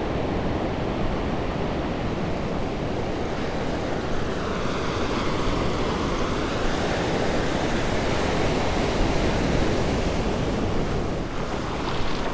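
Ocean surf breaking and washing up a sandy beach, a steady rush of waves that grows fuller for a few seconds midway, with wind buffeting the microphone.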